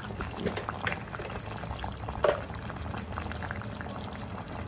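Thick masala gravy with brinjal pieces simmering in a pan, a steady low bubbling dotted with small pops, and one brief louder blip just past two seconds in.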